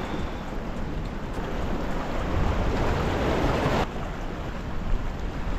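Wind buffeting the microphone over waves washing against jetty rocks, with a swell of rushing water that builds from about two seconds in and cuts off abruptly near four seconds.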